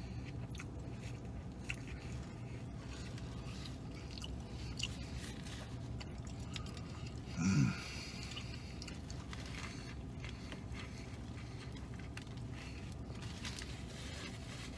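A man biting into and chewing a burger: soft, quiet mouth sounds over a steady low hum. A brief, louder vocal sound comes about halfway through.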